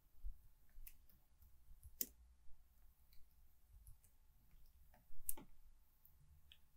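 Computer keyboard keystrokes: a few faint, scattered clicks as a command is typed, with a louder pair of clicks about five seconds in as it is entered.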